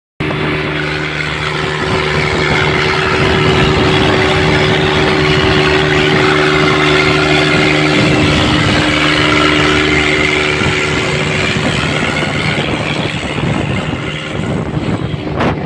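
Tractor diesel engines running loud under heavy load, pulling against each other in a tug-of-war: a dense steady drone with a few held engine tones, two of which fade out about eight and eleven seconds in.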